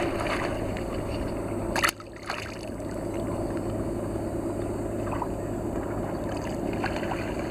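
Water lapping and sloshing against a concrete breakwater edge over a steady low hum, with one brief sharp sound about two seconds in.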